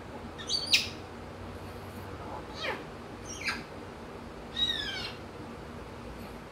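African grey parrot giving four short calls and whistles, most of them sliding down in pitch. The first, about half a second in, is the loudest.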